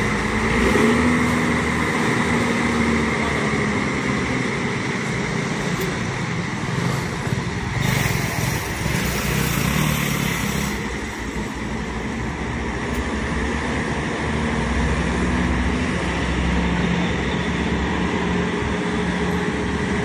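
Diesel engine of an ALS intercity coach running as the bus pulls away slowly. A hiss rises over it for about three seconds midway.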